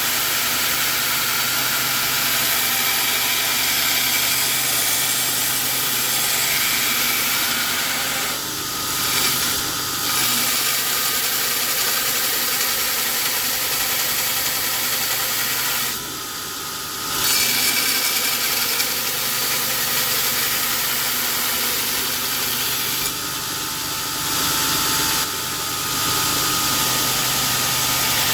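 A workshop machine runs steadily with a loud hiss, dropping briefly a few times.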